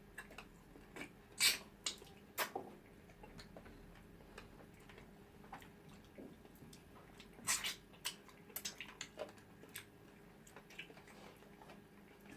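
Faint, scattered wet clicks and lip smacks of people eating, a handful of louder smacks among them.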